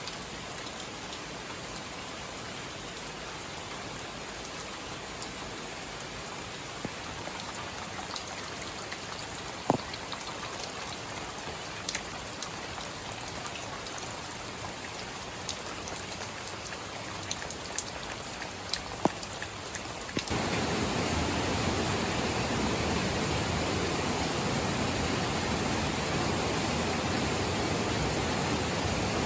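Steady rain with scattered sharp drips landing close by. About two-thirds of the way through it changes suddenly to a louder, fuller, steady rush of water like a stream or waterfall.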